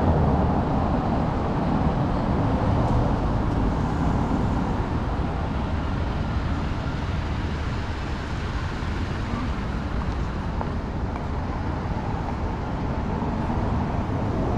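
City road traffic: the steady noise of passing cars and other vehicles.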